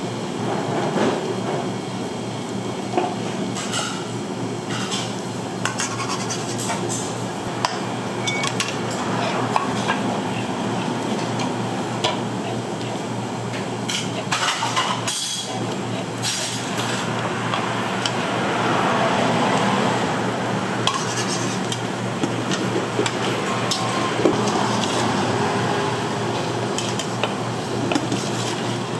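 Metal ladle clinking and scraping in an aluminium soup pot and against porcelain plates, with scattered sharp clinks over a steady low hum.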